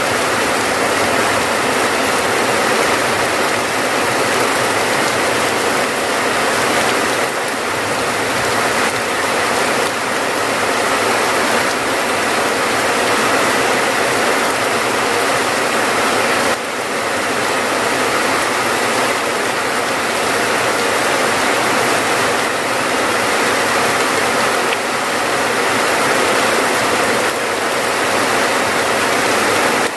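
Steady rain: a dense, even patter of countless drops that goes on without a break.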